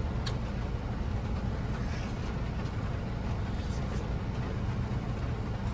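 Steady low rumble inside a Suzuki car's cabin, typical of the engine idling, with a few faint clicks.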